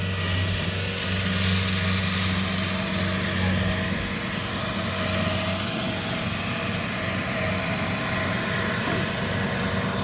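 Kubota 7000 combine harvester's diesel engine running steadily with a deep, even hum.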